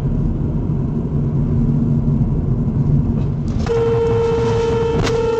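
Car engine and road noise heard from inside a moving car's cabin, then about three and a half seconds in a car horn sounds as one steady held tone as a car pulls out across the road ahead, with a brief click near the end.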